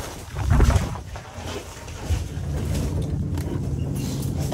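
A low rumble of wind buffeting the microphone about half a second in, then from about two seconds an engine idling steadily with a low hum.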